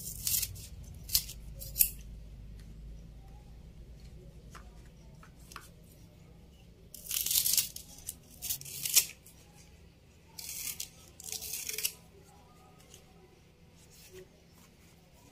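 Scissors snipping through fresh banana leaf, trimming the folded ends of leaf-wrapped parcels: a few short cuts in the first two seconds, then a run of longer snips from about seven to twelve seconds in.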